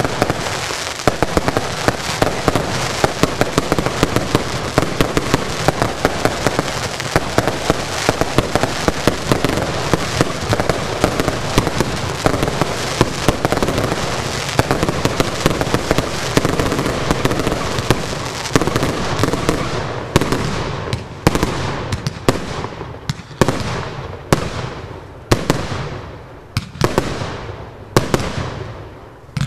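Fireworks finale barrage: a dense, continuous rattle of overlapping launches and bursts that thins about two-thirds through into separate bangs, about one or two a second, each with a trailing echo.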